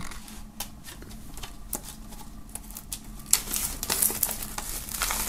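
Folding knife blade cutting into the plastic shrink-wrap on a CD case, with scattered light clicks, then the thin plastic film crinkling as it is peeled off the case from about three seconds in.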